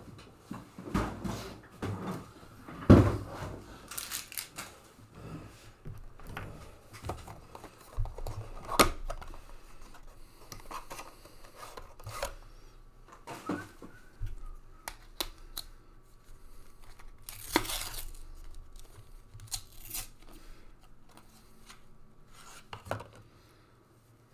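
A cardboard trading-card hanger box, a 2020 Panini Mosaic Football hanger, being opened by hand, with scattered scraping, clicking and tearing of the cardboard and the wrapper around the cards. A sharp knock comes about three seconds in, and a longer tearing sound comes near seventeen seconds.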